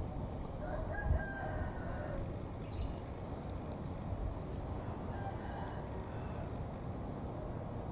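A rooster crowing, one call about a second long near the start and fainter calls later, over a steady low outdoor rumble. A short low thump about a second in.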